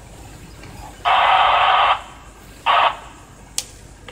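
Two harsh electronic buzzes, a long one of about a second and then a short one, followed by a single sharp click.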